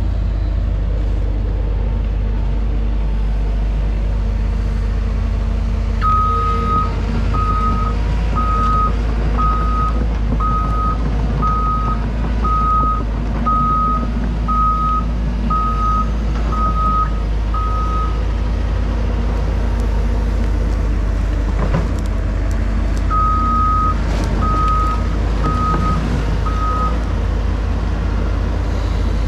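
Cat excavator's diesel engine running steadily. Its travel alarm beeps about once a second for some twelve seconds, as the machine tracks, then beeps four more times near the end. A single knock comes a little past the middle.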